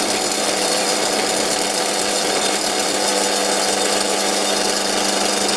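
Antique pre-war Karger metal lathe running while a lathe tool takes a steady cut on a pointed metal lathe center. The cut goes on as one even noise over the machine's hum, with a little chatter, the lathe shaking because of its motor.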